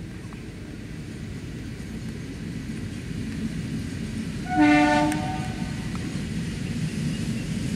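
Diesel locomotive sounding one short horn blast, under a second long, over a low rumble that grows steadily louder as the freight train approaches.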